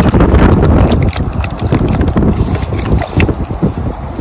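Wind buffeting the microphone on an open beach: a loud, gusty rumble with crackles.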